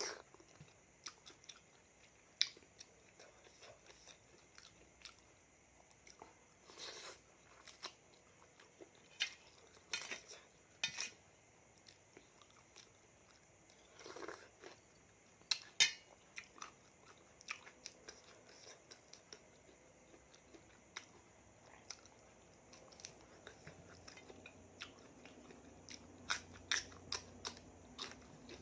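A person chewing mouthfuls of spicy raw seafood salad (salmon, shrimp and squid), with short, irregular mouth clicks and eating noises scattered through the quiet.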